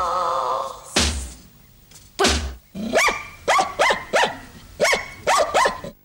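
A dog barks seven times in two quick runs, four then three, after the song's last held chord fades out and two heavy thumps sound.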